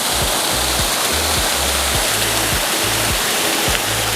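Waterfall rushing loudly and steadily, under background music with a steady beat and a deep bass line.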